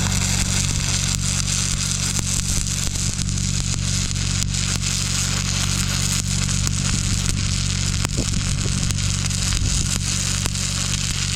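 Stick welder arc crackling and sizzling steadily as a bead is run on steel, over a steady low hum.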